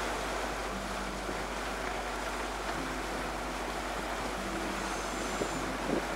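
Steady rush of water along a sailboat's hull under way, with wind buffeting the microphone.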